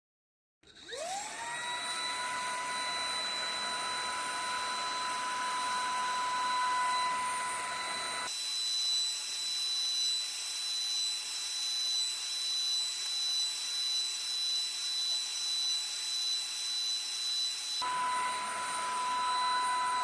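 Polaris PVCS 4090 cordless stick vacuum cleaner's motor spinning up about a second in to a steady high whine. About eight seconds in its sound changes, thinner and swelling in level in a regular rhythm, and near the end it goes back to the first whine.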